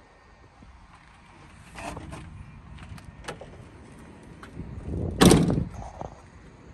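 Toyota FJ Cruiser's rear swing-out door, carrying the spare tire, being shut with one heavy thump about five seconds in. A few light clicks and knocks come before it.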